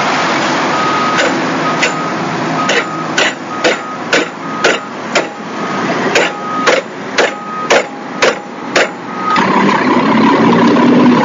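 Hammer striking metal at a vintage car's front wheel hub: about fourteen sharp blows, roughly two a second, over steady background noise. The blows stop about nine seconds in, and the background noise then grows louder.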